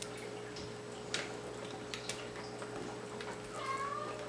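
A few faint, scattered light clicks and taps as a small screwdriver and the laptop's plastic screen bezel are handled, over a steady faint hum, with a brief faint squeak near the end.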